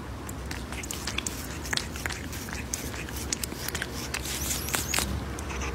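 Domestic cat licking and grooming its front paw close to the microphone: quick, irregular clicks of tongue and mouth, several a second, over a low steady hum.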